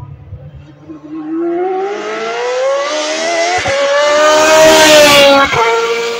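GP2 single-seater's V8 engine at full throttle, approaching and passing, its note rising in pitch with two short breaks for upshifts about three and a half and five and a half seconds in. It is loudest as the car goes by, and the note drops lower afterwards.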